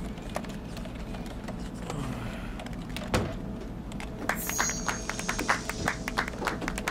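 Computer keyboard keys tapping over a quiet music bed: one sharp click about three seconds in, then a rapid, irregular clatter of keystrokes through the last few seconds.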